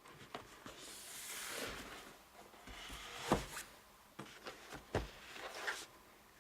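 Fabric being handled and rustled, followed by a series of sharp clicks and snips, the loudest just past the middle.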